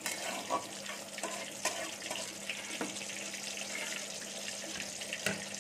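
Dried red chillies, bay leaves and panch phoron sizzling in hot oil in a karai: a steady hiss with a few light clicks of a metal spatula against the pan, the loudest near the end.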